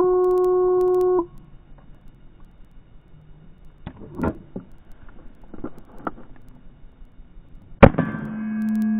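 Shot timer start beep, a steady tone lasting about a second, then faint clicks and rustling as the pistol is drawn, and near the end one loud shot from a Wilson Combat CQB 1911 in 9mm, followed by a lingering ringing tone.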